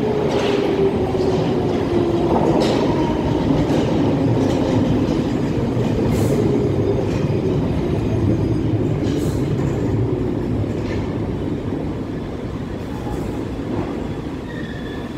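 London Underground Piccadilly line train (1973 Tube Stock) pulling into a deep-level tube platform and braking to a stop. A motor whine falls slowly in pitch as the train slows, over steady running noise with occasional clicks from the wheels, and the noise eases toward the end.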